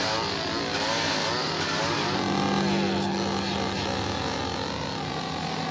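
Two-stroke chainsaw engine revving up and down, then held at a steady high-pitched drone from about two seconds in.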